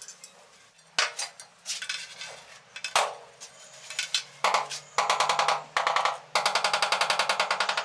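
Two sharp knocks, then rapid tapping in short bursts that settles into a fast, even rattle near the end.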